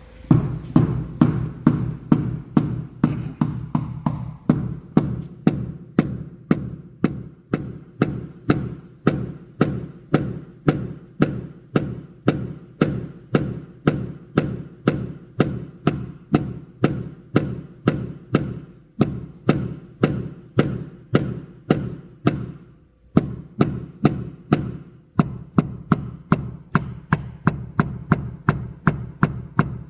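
Paintless dent repair tap-down: a hammer striking a knockdown tool to flatten a raised high spot on an aluminium car hood, in a steady run of sharp taps about three a second, pausing briefly near the end.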